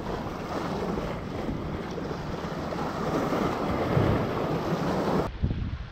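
Wind buffeting the microphone: a steady, rumbling rush that drops abruptly to a quieter level about five seconds in.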